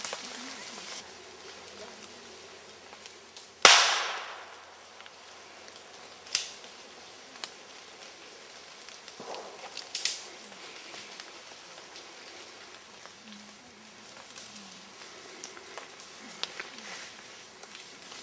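A single loud gunshot about four seconds in, with a short echoing tail. Two fainter sharp cracks follow, about two and a half and six seconds later.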